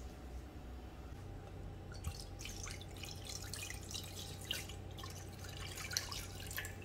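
Red wine poured from a bottle into a wide pot, a faint trickling splash that starts about a second in.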